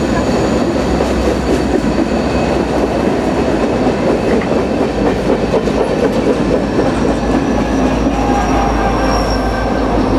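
Freight train of boxcars rolling past, a dense steady rumble of wheels on rail with thin high wheel-squeal tones over it. From about halfway through, a deeper low rumble of diesel locomotives joins as they pass close by.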